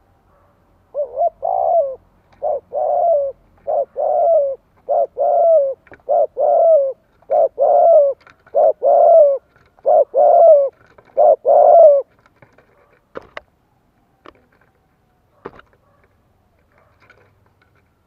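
Caged decoy spotted dove cooing in a rapid, insistent series: about nine two-part coos, each a short note followed by a longer one, the call Vietnamese keepers use to rouse wild doves. The calls stop about twelve seconds in, followed by a few sharp clicks.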